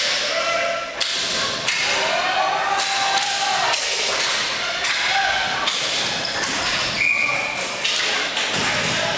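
Ball hockey play on a concrete arena floor: repeated sharp knocks and thuds of sticks and the ball against the floor and boards, echoing in the large hall, with players calling out.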